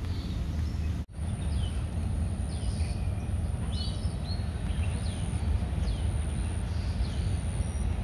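Birds calling with short, repeated downward-sweeping chirps, about one or two a second, over a steady low rumble of traffic and a thin, steady high tone. The sound cuts out for a moment about a second in.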